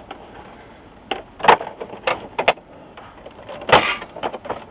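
Plastic housing of an LCD monitor knocking and clicking against a workbench as the monitor is turned over and set down. There are several sharp knocks, the loudest about a second and a half in and again near the end.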